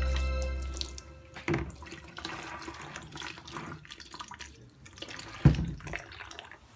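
Water splashing and dripping off a wet motherboard into a plastic bucket as it is washed. There is a sharper splash about a second and a half in and another near the end.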